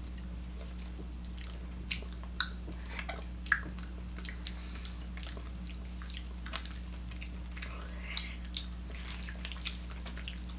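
People chewing soft, squishy gummy candy: scattered wet mouth clicks and smacks over a steady low hum.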